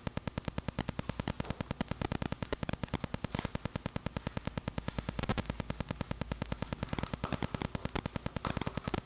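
Rapid, very regular clicking, about eight clicks a second, over a low steady hum.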